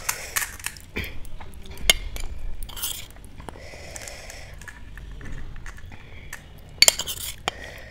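A crisp panipuri shell cracked open with the fingers, crackling, then a spoon clinking and scraping as filling is stuffed into it. A sharp cluster of crackles and clicks comes about seven seconds in.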